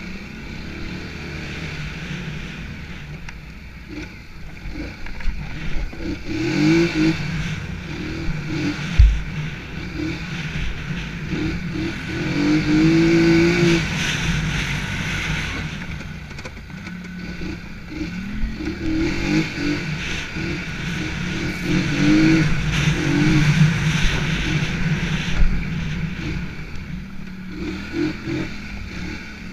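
ATV engine revving hard under racing load, its pitch rising and falling again and again as the throttle is worked. A single sharp thump about nine seconds in.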